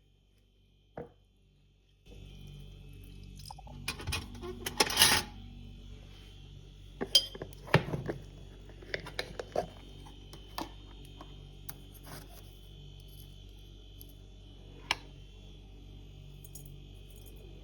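Scattered light clinks and knocks of small hard objects being handled, the busiest clatter about four to five seconds in and again around eight seconds, over a steady hum with a faint high whine that starts abruptly about two seconds in.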